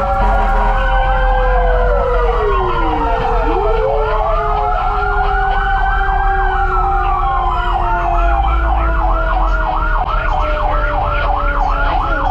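Several fire truck sirens sounding together, heard from inside a fire engine's cab. Slow wails rise and fall in the first half, then a fast repeating yelp takes over from about the middle, over the low running of the truck's engine.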